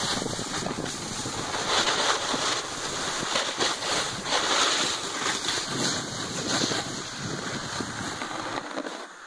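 Wind rushing and buffeting over the microphone during a fast ride down a snowy slope, mixed with the hiss of sliding over snow; it swells and fades, and drops off sharply near the end.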